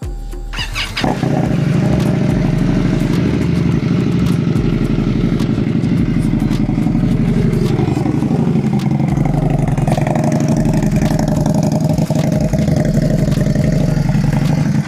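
Indian Scout Bobber's V-twin engine starting on the starter about a second in, then idling steadily.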